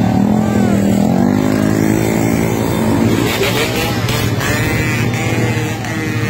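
Many motorcycle engines running together, close by, their pitch rising and falling as riders rev and move off.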